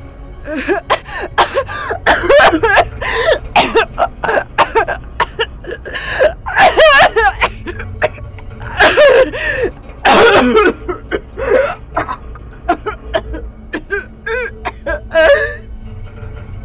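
Many short, overlapping vocal sounds, cries, gasps and yelps with wavering pitch, come one after another over a low, steady drone.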